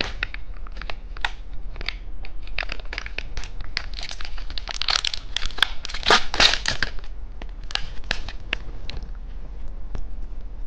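Plastic candy packaging crinkling and crackling as it is handled and opened, in irregular bursts that are busiest midway.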